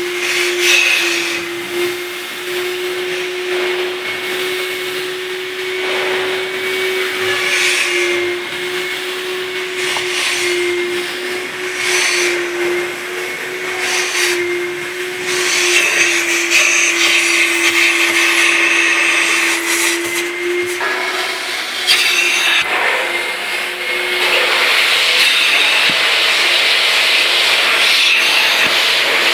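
Wet and dry vacuum cleaner running: a steady motor whine over an airy rush, with scattered short knocks. The whine drops out about twenty seconds in, and a louder, hissier rush takes over near the end.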